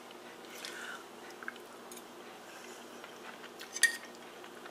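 A person quietly chewing a mouthful of pot roast beef, soft and faint, with one sharper click near the end.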